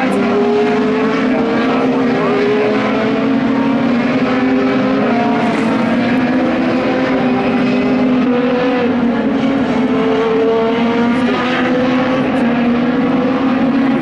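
Open-wheel race car engines heard from elsewhere on the circuit, several overlapping engine notes rising slowly as the cars accelerate and dropping at gear changes, over a steady drone.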